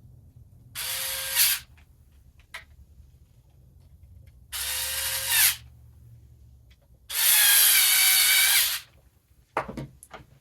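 Battery-powered electric screwdriver whining in three short runs as it drives screws, the last run the longest. The owner thinks it may need new batteries.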